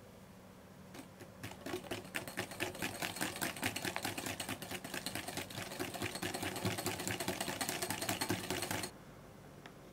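Wire balloon whisk beating a wet butter, sugar and egg mixture in a glass bowl: a fast, continuous clatter of the wires striking and scraping the glass. It starts about a second in and stops abruptly near the end.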